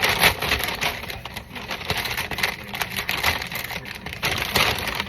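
Plastic food packaging crinkling and rustling in the hands, an irregular run of crackles and clicks.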